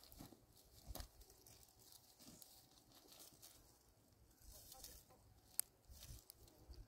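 Faint, scattered footsteps crunching on loose stones and dry scrub, with one sharper click about five and a half seconds in; otherwise near silence.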